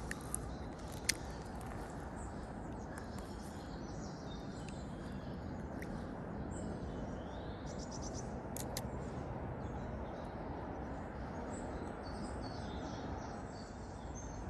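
Lakeside ambience: birds chirping over a steady background rumble, with a few sharp clicks about a second in and again past the middle.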